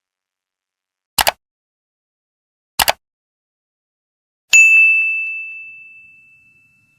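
Two short double clicks, about a second and a half apart, then a single bright ding that rings on one high tone and fades over about two seconds.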